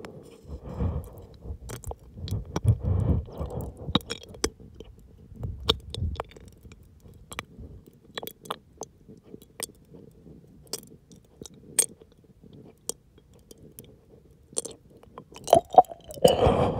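Wet mouth sounds from a mouth held wide open around a gummy candy: scattered sharp saliva clicks and tongue smacks, with low throat rumbles a few times in the first six seconds. Near the end the clicks cluster and a louder swallow-like gulp comes as the tongue lifts and the mouth closes.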